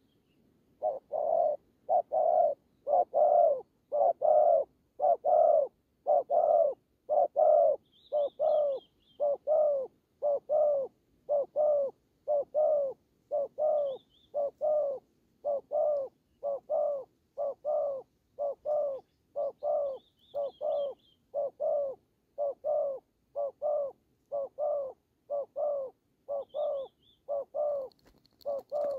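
Spotted doves cooing in a long, rapid, even series of short coos, louder in the first half: the aggressive calling of a caged decoy and a wild male facing off. Faint high chirps of small birds come in now and then.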